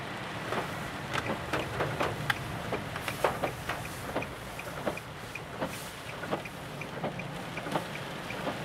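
Raindrops tapping irregularly on a car's roof and windshield, heard from inside the moving car over a steady low engine and road hum. Now and then the windshield wipers swish across the glass.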